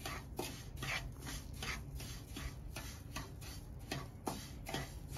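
A spoon stirring semolina as it roasts in ghee in a pan, scraping the pan in regular strokes about two to three times a second.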